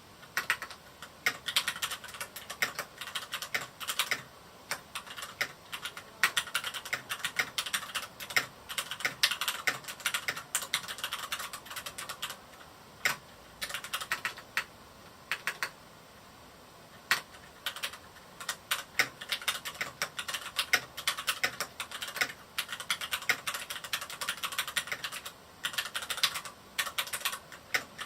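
Typing on a Varmilo Miya68 mechanical keyboard with Cherry MX Red linear switches: quick runs of key clacks broken by a few short pauses, the longest a couple of seconds a little past the middle.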